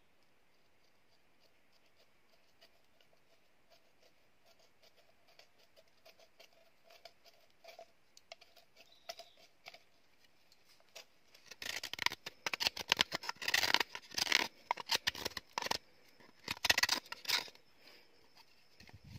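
A knife cutting and scraping a green bamboo tube: light, scattered strokes at first, then a run of loud, rapid scraping strokes past the middle that eases off near the end.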